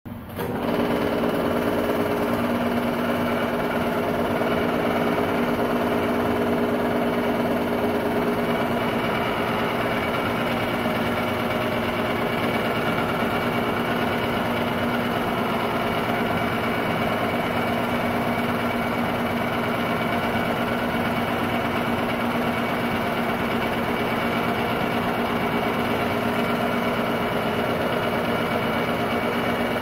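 Technicolor 810 8mm film-loop projector running: a steady motor and fan hum with the mechanical whirr of the film transport, starting abruptly right at the beginning.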